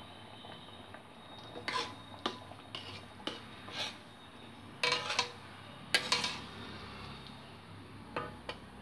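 Metal ladle stirring thick cooked moong dal in a metal pot, clinking and scraping against the pot's sides and bottom in a series of irregular knocks, loudest about five and six seconds in.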